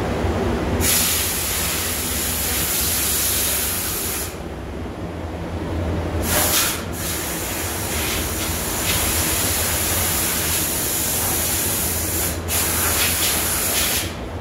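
Spray hissing in long bursts from a hand-held sprayer, with breaks about four seconds in and near twelve seconds, over a steady low hum.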